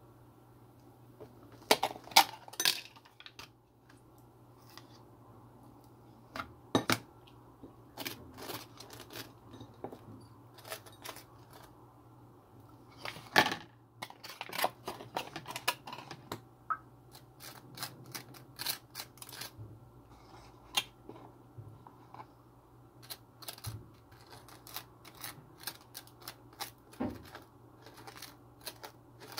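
Irregular clicks, taps and scrapes of a butter knife, threaded through a rubbery plastic toy ball, knocking against a plastic cream cheese tub and a ceramic plate and spreading cream cheese on a bagel. A steady low hum runs underneath.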